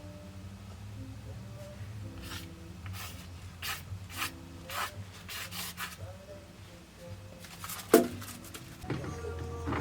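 Short scraping and rubbing noises of metal mounting hardware being handled and fitted, with a sharp knock about eight seconds in, over a low steady hum.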